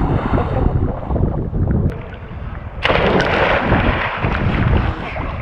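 Sea water splashing from people jumping off a boat. About three seconds in there is a sudden loud, close splash as the camera goes into the water with a second jumper. Wind rumbles on the microphone throughout.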